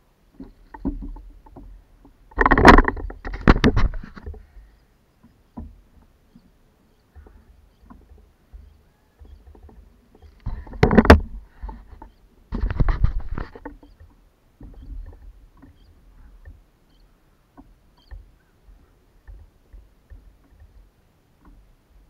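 Handling noise on a plastic sit-on-top kayak as a freshly caught fish is lifted and unhooked: irregular knocks and rustles, with a few louder noisy bursts, two a few seconds in and two around the middle.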